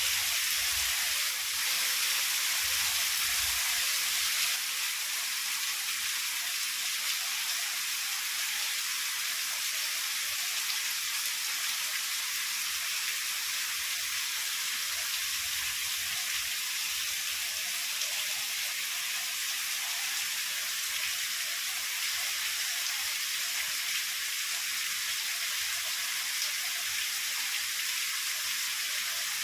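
Heavy rain falling as a steady hiss, a little louder in the first few seconds.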